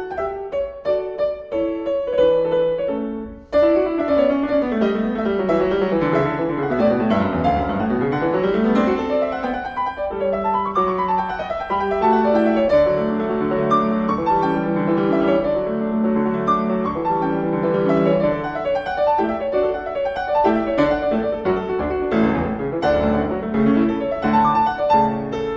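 Background piano music; around the middle a run of notes falls and then climbs back up.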